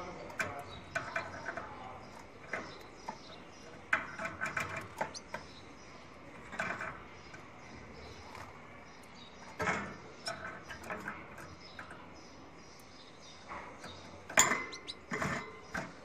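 Birds in an aviary making scattered short chirps, mixed with sharp clicks and knocks, loudest in bursts about ten and fourteen seconds in.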